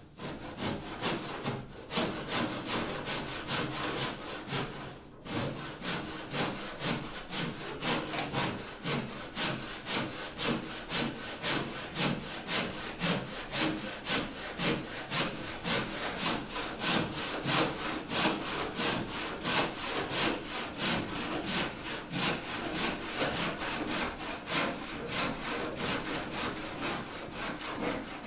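Hand saw cutting wood in steady back-and-forth strokes, its blade held flat against a plywood boat hull to trim the wood flush. There is one short pause about five seconds in.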